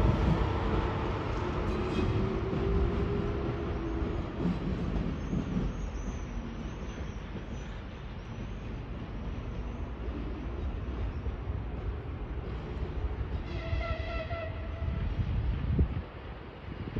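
EP2K electric locomotive running along the station tracks with a steady low rumble of wheels and running gear, fading as it moves away. About three-quarters of the way through, a locomotive sounds a short, high-pitched whistle, and a brief louder low thump comes just before the end.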